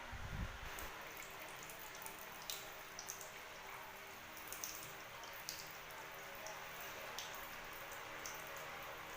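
Faint steady hiss of running water, with scattered light drips and splashes.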